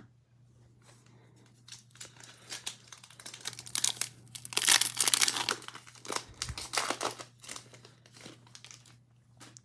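A foil trading-card pack wrapper being torn open and crinkled, a dense crackle that peaks about halfway through.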